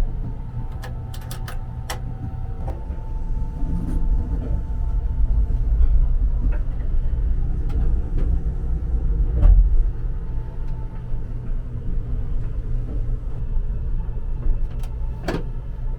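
Low, steady rumble of the Kintetsu 'Aoniyoshi' express train, heard from inside the carriage, with a few sharp clicks and knocks, a brief steady tone in the first few seconds, and a swell in loudness around the middle.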